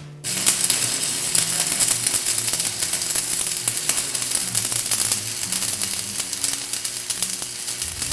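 Electric arc welding on heavy steel: the arc's continuous crackling sizzle, starting a moment after the beginning and carrying on steadily.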